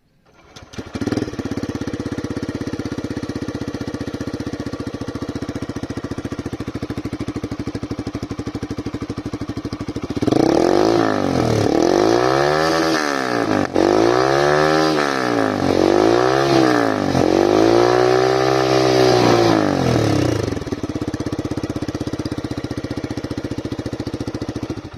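Motorcycle engine with an aftermarket exhaust and dB killer fitted, starting about a second in and idling. It is then revved in about five throttle blips, each rising and falling in pitch, before settling back to idle.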